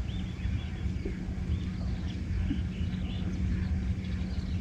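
A small boat's motor running with a steady low hum and rumble. Birds call over it in short, repeated chirps.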